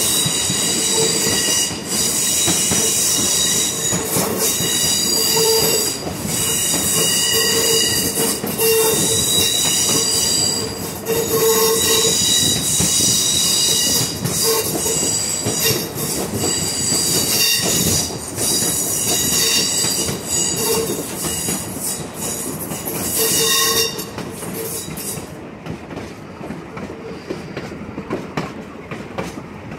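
Steel wheels of a railroad train's cars squealing against the rails: a loud, high-pitched squeal of several steady tones over the rolling rumble. The squeal stops about four-fifths of the way through, and the cars roll on with a quieter rumble.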